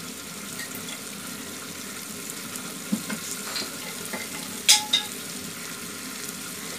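Duck meat and masala frying in oil in an aluminium pressure-cooker pot, a steady sizzle with a few sharp clicks, the loudest about two-thirds of the way through. The meat is being fried dry with only a little water, so it sizzles rather than simmers.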